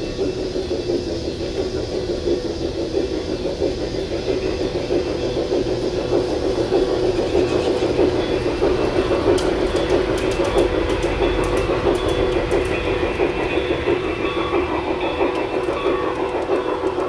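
Garden-railway model steam locomotive running toward the microphone along the track, a steady hum with wheels clicking on the rails, growing slowly louder as it approaches.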